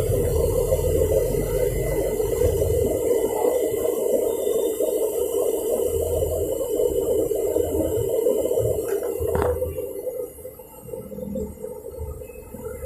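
Samsung front-loading washing machine running with a steady rush of water and low pulsing thumps from the drum, dropping to a quieter low hum about ten seconds in. The machine is being tested after its control module was replaced.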